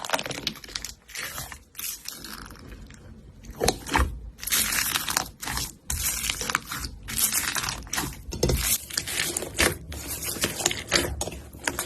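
Crunchy slime being worked by hand, giving a dense, irregular run of crackles and crunches, with a louder crunch about four seconds in.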